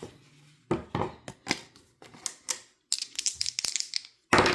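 Tabletop dice-game play: a few clicks and taps, then dice rattling quickly for about a second and a louder clatter near the end as they land.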